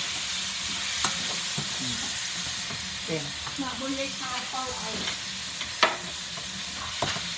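Sliced meat sizzling in a frying pan as it is stir-fried, a steady frying hiss. The utensil knocks sharply against the pan three times: once about a second in and twice near the end.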